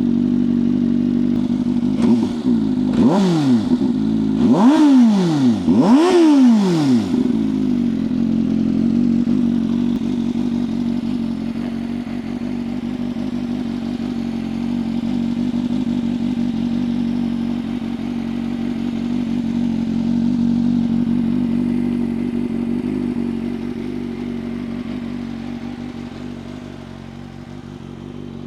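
CFMoto 500SR Voom's parallel-twin engine through an SC Project carbon slip-on exhaust, with the stock catalytic converter kept: idling steadily, blipped three times in quick succession a few seconds in, then settling back to idle.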